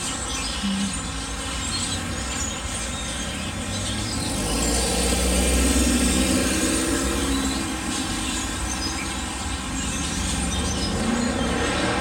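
A large flock of birds calling loudly and constantly in the treetops, a dense chatter of many short calls. A low rumble swells from about four to seven seconds in.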